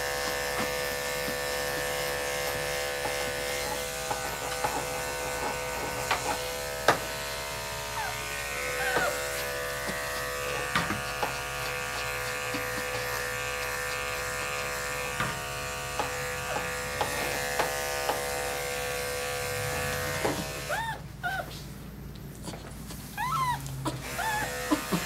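Andis five-speed electric dog clipper running with a steady hum as it clips a Maltese's coat, stopping about four-fifths of the way through and starting again near the end. The Maltese whines in a series of short rising-and-falling cries, most plainly while the clipper is stopped.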